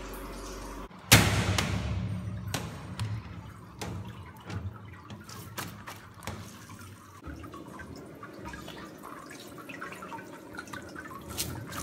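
Whey dripping and splashing as gloved hands press fresh sheep's-milk curd into plastic cheese baskets on a perforated steel draining table, with scattered wet knocks and squelches. A louder splash or knock comes about a second in.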